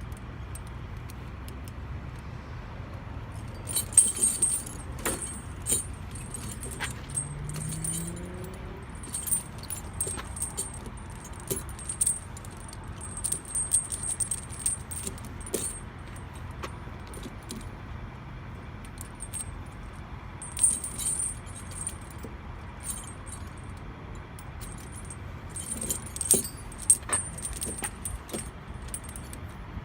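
Steel tire chain clinking and rattling in bouts as its links are handled and the outer hook is fastened two links in on a truck tire, over a steady low rumble.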